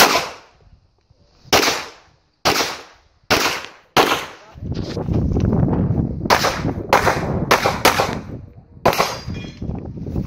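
Pistol shots fired during a practical-shooting stage: about a dozen single shots at irregular spacing, several in quick succession in the second half. A steady rumbling noise lies under the later shots.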